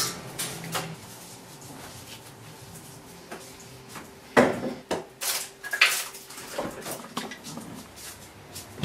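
Handling at a fridge's freezer compartment after de-icing: a quiet stretch with a faint steady hum, then several sharp knocks and clatters of containers or a plastic drawer being moved, about four seconds in.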